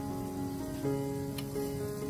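Background instrumental music with held notes that change about halfway through, over the steady hiss of potato sticks frying in hot oil in a small pan.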